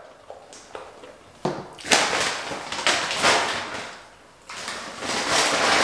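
Crinkling, rustling handling noise of food packaging and sauce containers being moved around on the table, in two stretches with a short quiet gap just after four seconds in.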